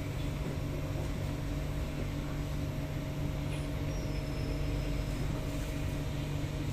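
Steady hum and low rumble inside an SMRT C751B metro car, with several tones from the train's onboard electrical equipment that hold one pitch.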